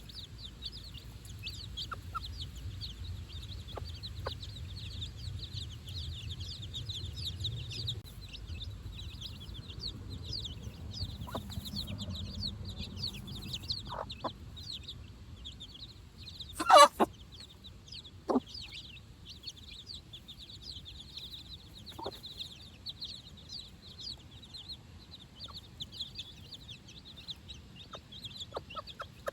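A brood of four-day-old chicks peeping constantly in a dense chorus of short, high chirps. Now and then the mother hen gives a brief, lower call, and one call just past halfway is much louder than the rest.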